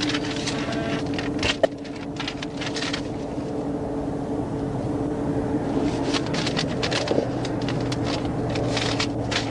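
Steady hum of an idling vehicle at the roadside, broken by short bursts of hiss and a sharp click about a second and a half in and another near the end.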